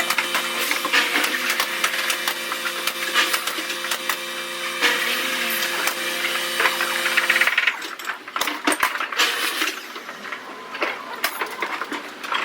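An electric power tool running with a steady whine, which stops about seven and a half seconds in. Scattered knocks and clicks follow.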